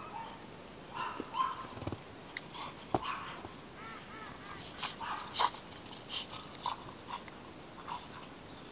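A small dog yapping in short, irregular calls, with a few sharp knocks among them.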